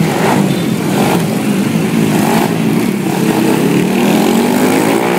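Motorbike engines running at speed, with one engine note climbing near the end as it accelerates.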